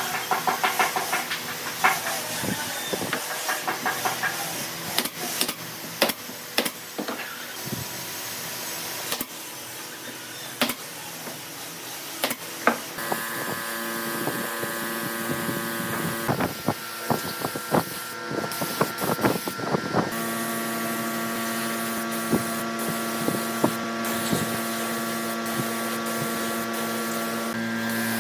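Gravity-feed air spray gun hissing as it sprays finish onto wood, with scattered clicks. A handheld power driver rattles in short runs in the first few seconds, and a steady machine hum joins about halfway through.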